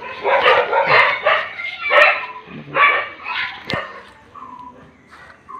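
A dog barks repeatedly in a run of rough, irregular barks that die away after about three seconds. A single sharp click comes near the four-second mark.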